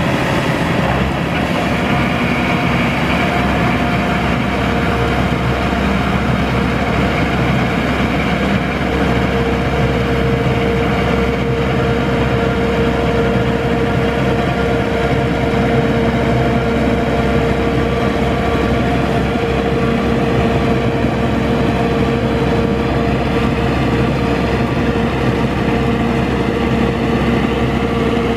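Engine of a WD3100 crawler rotary tractor running steadily under load while its rotary tiller churns wet paddy mud.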